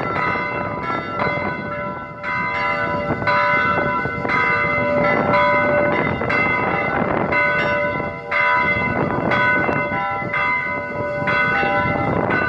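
Greek Orthodox church bells ringing: several bells of different pitches struck in quick succession, their tones ringing on and overlapping.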